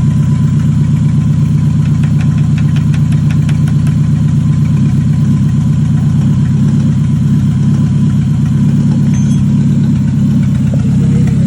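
Suzuki Futura 1.5-litre fuel-injected four-cylinder engine idling steadily.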